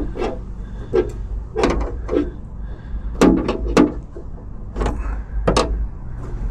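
Irregular sharp clicks and knocks, about a dozen, from metal door-latch parts inside a Jeep Wrangler YJ door as the latch rod and a clevis pin are worked into place by hand. A steady low hum runs underneath.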